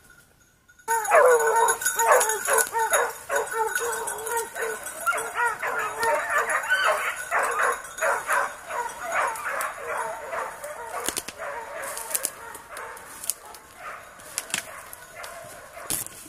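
Petit basset griffon vendéen hounds giving tongue, the cry of hounds on the line of game: loud, overlapping baying breaks out suddenly about a second in, then thins out and grows fainter. A few sharp cracks of brush in the second half.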